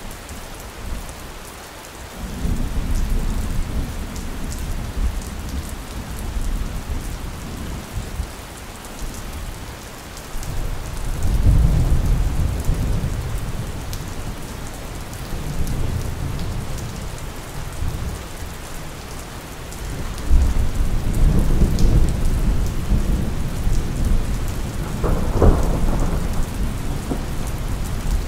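Steady rain with rolling thunder: deep rumbles set in about two seconds in, swell again near the middle and once more later on, with a sharper clap near the end.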